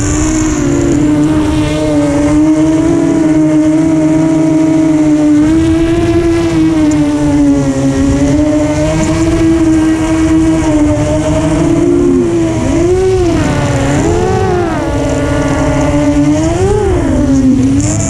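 FPV quadcopter motors and propellers whining, the pitch holding and then drifting with the throttle. Near the end it swells up and down several times in quick succession as the throttle is blipped.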